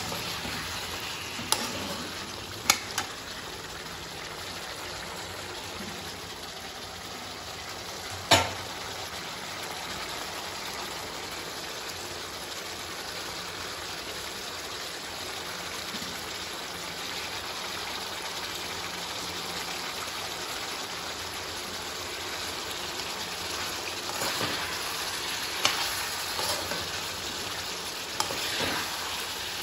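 Chicken curry sizzling steadily in a kadai, with a steel spoon clinking against the pan a few times. The loudest clink comes about eight seconds in, and there are more near the start and toward the end.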